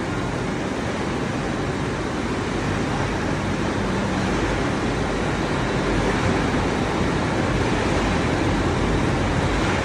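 Cashew washing machine running: a steady mechanical rumble under an even, water-like wash of noise, a little louder from about six seconds in.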